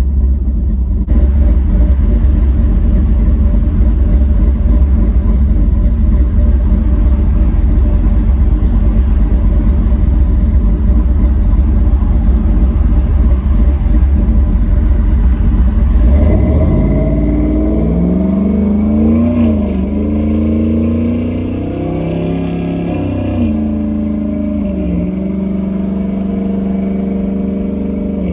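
LS V8 engine of a swapped Ford Lightning pickup on the move. For the first half there is a heavy, dense low rumble. Then the engine note comes through clearly, climbing and dropping back several times as the throttle and revs change.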